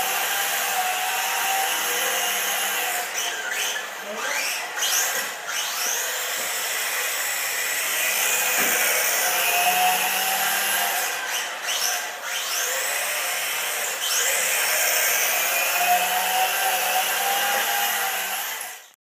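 Team Associated RC18R electric RC drift car's motor and gears whining as it slides around a concrete floor, the pitch sweeping up and down as the throttle is blipped. The sound cuts off suddenly near the end.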